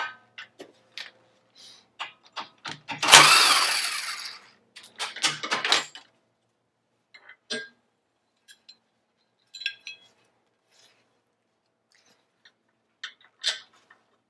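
Metal clinks and knocks of fairlead mounting bolts, nuts and the hawse fairlead being worked loose and handled, with one louder burst about three seconds in and a cluster of clicks just after.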